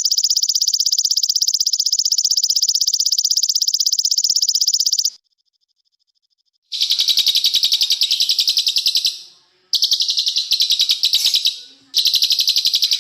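Small songbird's high, very fast, dense trill. One long trill runs about five seconds, then after a pause of about a second and a half come three shorter trills with brief breaks between them.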